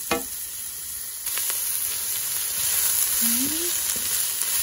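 Sliced carrots and onion sizzling in a hot oiled wok as they are stir-fried with a wooden spatula, with a few sharp clicks of the spatula against the pan. The sizzle grows louder about a second in.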